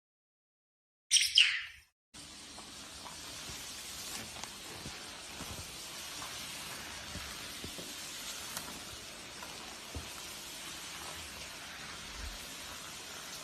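A bird's short, loud, high call about a second in, falling in pitch, then a steady hiss with faint scattered ticks.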